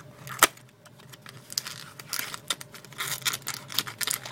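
Plastic packaging crinkling and small vape cartomizers clicking as they are handled. There is one sharp click about half a second in, and a run of quick clicks and rustles through the second half.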